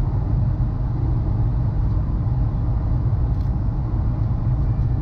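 Steady low rumble of a Boeing 737-400's cabin in flight: airflow over the fuselage and the drone of its CFM56 engines, heard from a window seat.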